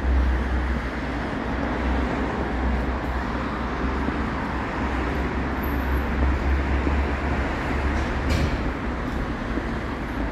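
Steady city traffic noise with a constant low rumble.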